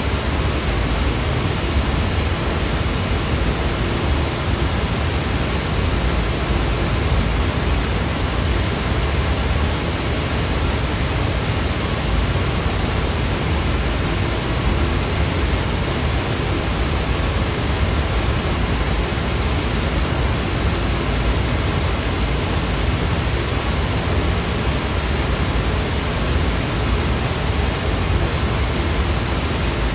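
Generated white noise: a steady, unchanging hiss with no events, heavier in the lows than in the highs.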